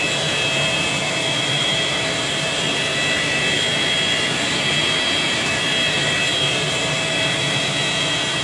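Carpet-extraction machine running steadily, its vacuum pulling through a rotary cleaning head worked across carpet: a steady high whine over rushing air.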